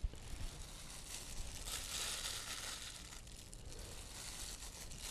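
Faint rustling and crinkling as a hand in a plastic glove handles mushrooms and puts them into a pot of water.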